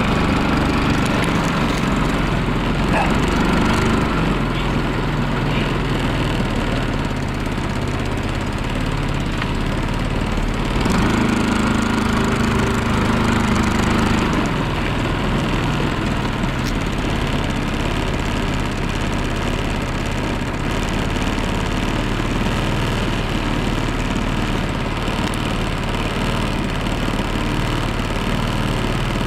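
Stels ATV 300B quad bike engine running steadily at low revs, with a slightly higher note for a few seconds about eleven seconds in.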